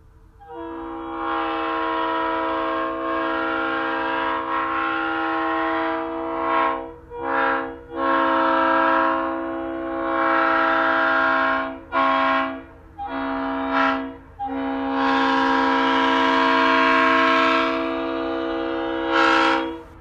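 1967 SL3LR three-chime locomotive air horn sounding a steady, loud chord in a series of blasts: three long blasts of about four to six seconds each, with several short toots between them.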